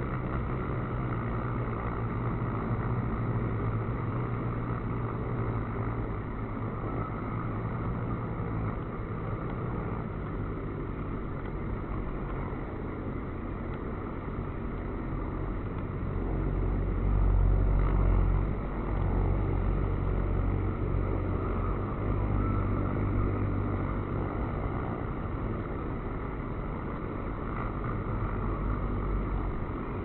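Honey bees at the hive entrance: a steady low droning hum of many wings, swelling louder for a couple of seconds just past the middle.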